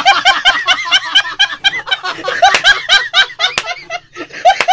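A person laughing in a rapid run of high-pitched giggles, with a brief break about four seconds in before the laughing picks up again.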